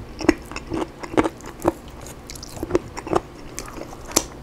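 Chewing and biting crispy-skinned oven-baked rotisserie chicken: irregular short crunches and clicks, about a dozen.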